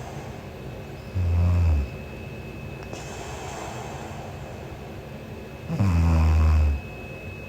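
A sleeping young woman snoring: two low-pitched snores, each under a second long, about four and a half seconds apart.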